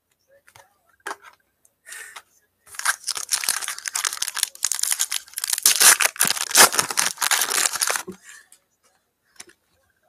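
A trading-card pack wrapper being torn open and crinkled for about five seconds, starting about three seconds in, after a few light clicks of cards being handled.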